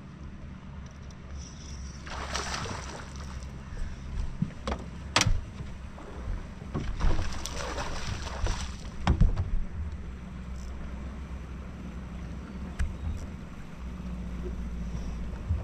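Water sloshing and lapping against a bass boat's hull over a low steady hum, with two stretches of louder rushing noise and a few sharp knocks on the boat.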